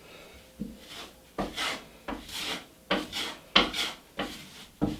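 Drywall knife scraping wet joint compound over paper tape in a run of short strokes, about seven in five seconds, smoothing the tape and pressing out air bubbles.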